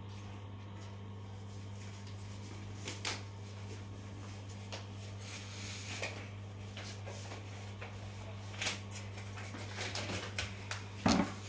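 Steady low hum from the aquarium's running equipment, with scattered light clicks and rustles that come more often near the end, the loudest about eleven seconds in.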